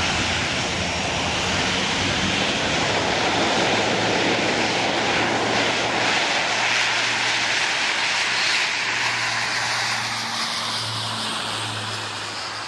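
Aircraft engines: a loud, steady rush over a low hum, with a whine that glides down in pitch and a slight drop in level over the last few seconds.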